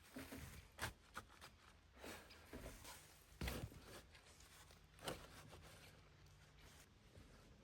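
Faint handling sounds: soft rustling with three louder knocks, about a second in, midway and about five seconds in.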